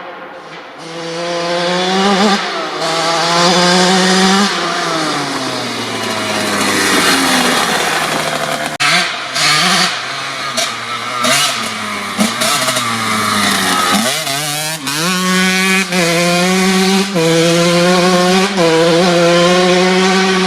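1997 Kawasaki KX80's single-cylinder two-stroke engine under hard throttle. It revs up, falls off for several seconds as the throttle is shut, and gives a run of short throttle blips. It then climbs fast and holds high revs, with two brief dips near the end.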